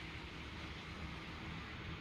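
Steady droning rush of wind outside, with a low hum underneath and no gusts or breaks.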